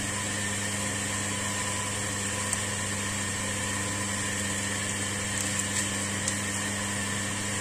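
A steady low mechanical hum with faint bubbling from broth boiling in a wok, and a few soft ticks.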